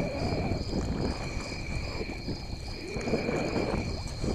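Kayak paddling: the paddle splashes through the water and water swishes along the hull, swelling and fading with the strokes, with some wind on the microphone.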